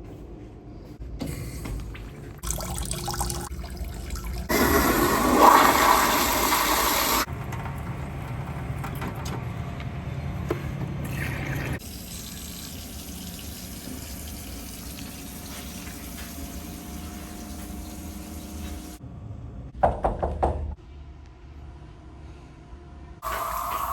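Toilet flushing: a loud rush of water about four seconds in, then quieter running water as the tank refills.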